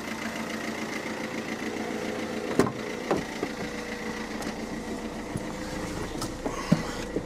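Car engine idling steadily, with a car door shutting with a sharp thud about two and a half seconds in and a few lighter clicks afterwards.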